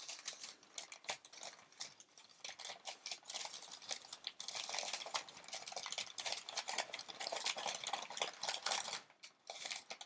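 Crumpled glossy advertising-flyer paper crinkling and rustling as it is pulled open by hand. The crackling is sparse at first and gets busier after a few seconds.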